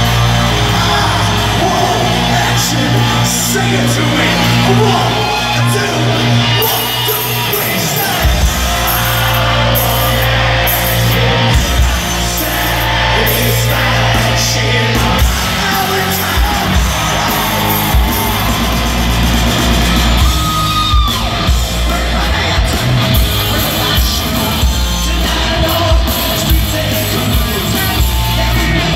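Live glam-metal band playing loud in a large hall, the lead singer singing and shouting into the microphone over guitars and drums, as heard from the audience. The drums come in hard about eight seconds in.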